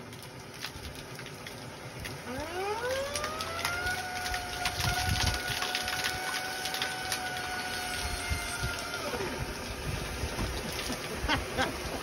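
Bouncy house blower forcing air through a clogged dryer vent line: its whine rises steeply about two seconds in, holds steady, then drops away near the end. Water sputters and spatters out of the vent in short crackles.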